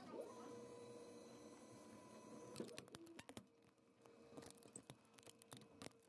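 Faint steady whine of a 3D printer's motors running during a print. About two and a half seconds in it gives way to faint scattered clicks and taps.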